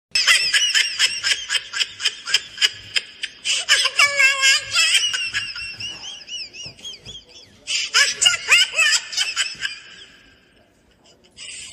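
High-pitched laughter and voice sounds, with a fast ticking beat in the first few seconds, fading away shortly before the end.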